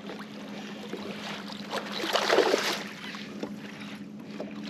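Bass boat on open water during a fish fight: a steady low hum with wind and water noise, and a brief, louder rush of noise about two seconds in.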